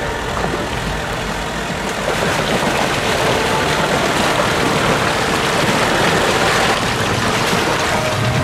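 Off-road SUV engine running, with a dense rush of noise that grows louder about two seconds in.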